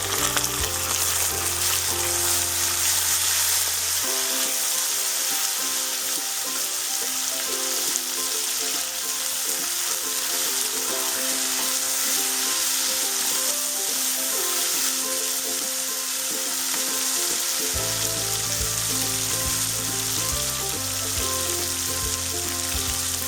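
Small pieces of chicken frying in hot oil with browned onions: a steady sizzle. Background music with held notes plays underneath.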